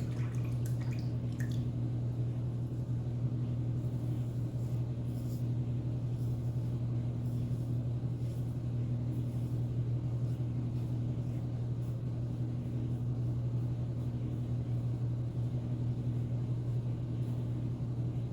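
Steady low hum of a laundry machine running in the background, with a faint scratch now and then from a safety razor drawn over stubble.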